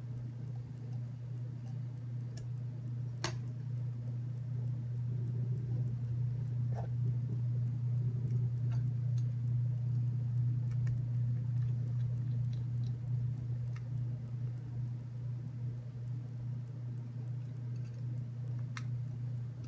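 Scattered light clicks and ticks of a hand screwdriver and small screws working in the TurtleBot3's black plastic chassis plates, with a sharper click about three seconds in, over a steady low hum.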